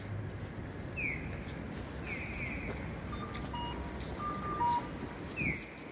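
Japanese accessible pedestrian signal sounding its electronic bird-chirp walk cue: a short falling chirp about a second in, a longer fluttering chirp about two seconds in, and another short chirp near the end, over a low street hum. The chirps mean the walk light is green for the scramble crossing.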